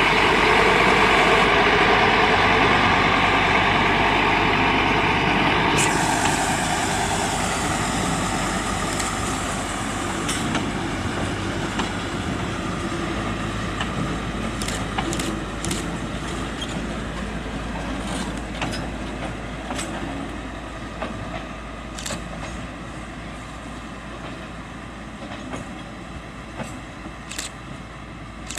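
Schöma diesel shunting locomotive's engine running loudly up close for about the first six seconds. The locomotive and its latex tank wagons then move away, and the engine sound fades, with scattered sharp clicks and knocks from the wagons running over the track.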